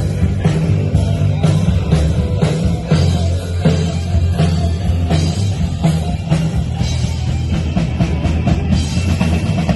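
Rock music: a drum kit keeping a steady beat over a bass line and guitar.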